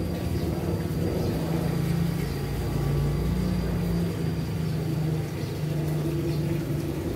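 A low, steady engine rumble of a motor vehicle, its pitch shifting slightly, with a faint steady high whine above it.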